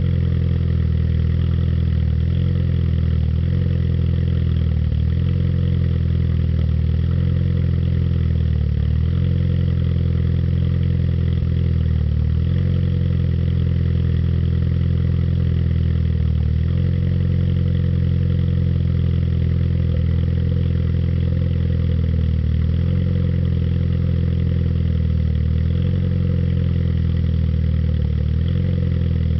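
Turbocharged Suzuki Swift's exhaust at a steady idle, with a deep even note and small dips every few seconds.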